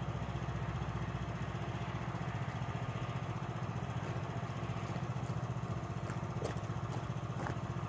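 Small machine's engine idling with a steady, even pulse.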